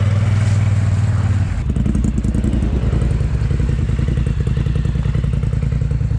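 ATV engine running; about a second and a half in its note drops to a lower, pulsing, chugging run.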